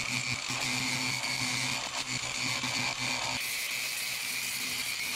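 Electric angle grinder with a sanding disc on a foam backing pad, grinding old gel coat and fiberglass off a boat hull: a steady motor whine over a gritty hiss. About three seconds in, the sound changes abruptly: the low hum drops away and the hiss grows brighter.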